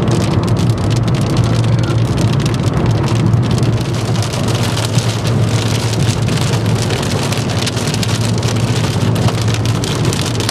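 Heavy rain pelting a moving car's windshield and roof as a dense patter of drops, over the steady low drone of the car on the road.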